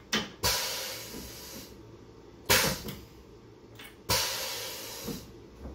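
Pneumatic power drawbar on a Tormach 1100MX mill spindle cycling while a tool holder is released and seated by hand: three bursts of air hiss, each starting suddenly, the first and last about a second long. The drawbar still releases the tool stickily after adjustment.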